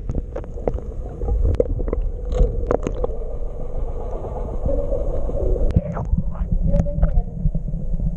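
Tour boat's engine running steadily, a deep rumble with a wavering hum, with scattered sharp knocks throughout.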